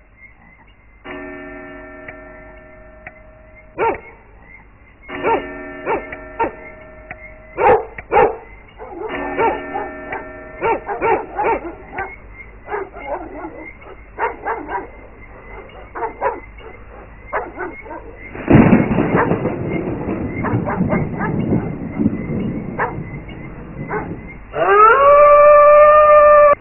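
Spooky animation soundtrack: held eerie tones and sharp hits, then a run of dog barks and a loud noisy rush. Near the end a dog howl rises in pitch and holds.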